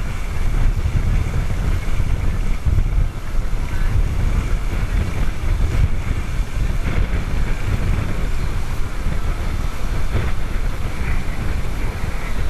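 Wind buffeting the microphone over the rush of water past a moving catamaran's hull, a steady loud rumble that rises and falls without a break.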